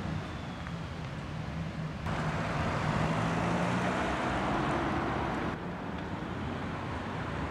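Road traffic noise: a vehicle's engine hum and tyre noise. It steps up abruptly about two seconds in and drops back a few seconds later.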